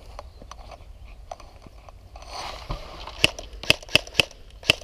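Airsoft gunfire: five sharp cracks in quick succession, a few per second, in the last second and a half, after a stretch of faint rustling and light ticks.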